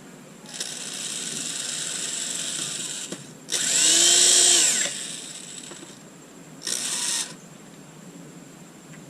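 Power drill driving screws in three runs: a steady run of about two and a half seconds, then a louder burst of about a second and a half in which the motor's pitch rises and falls, and a short burst near the end.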